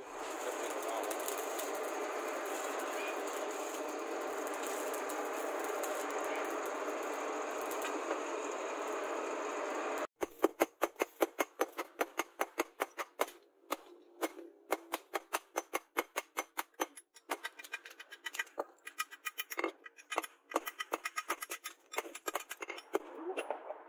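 Coal forge fire under a forced-air blast, a steady rushing hiss. About ten seconds in it cuts off, and a hammer strikes red-hot steel on a steel post anvil in quick runs of blows, about three or four a second, with short pauses.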